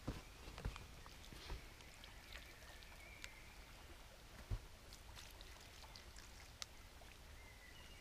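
Faint footsteps thud on the forest floor, then water is poured from a small pot onto the campfire's embers to put the fire out, with small clicks and crackles.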